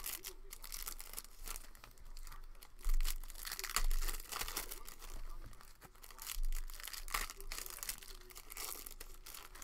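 Plastic trading card pack wrapper being torn open and crinkled by hand, an irregular run of crackles and rips.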